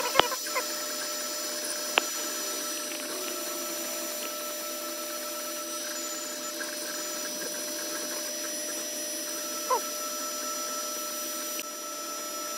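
Creality Ender 3 3D printer running mid-print: a steady hum and whine of its cooling fans and stepper motors as the print head moves. Sharp clicks at the start and again about two seconds in.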